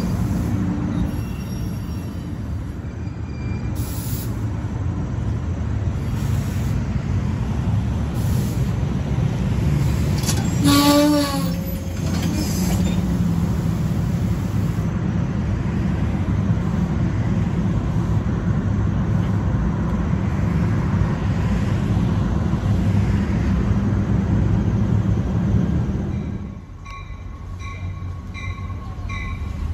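A train passing close by: a steady rumble of wheels and running gear on the rails, with a brief high tone about 11 seconds in. The rumble dies away sharply about 26 seconds in.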